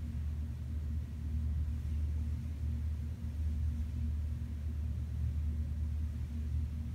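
Steady low rumbling hum, with a fainter higher tone holding above it and no distinct events.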